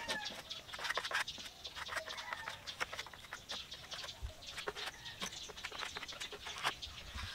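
Chickens clucking in the background, with many irregular sharp clicks and taps throughout.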